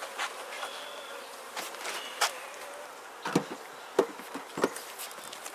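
Honeybees buzzing around an open Langstroth hive, with several sharp knocks scattered through, the loudest about three and four seconds in.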